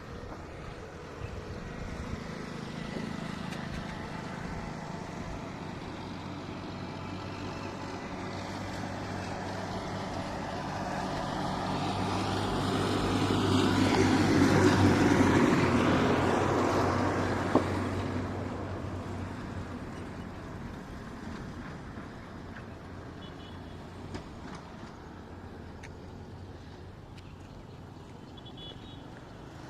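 A heavy vehicle's engine running, growing louder to a peak about halfway through and then fading away.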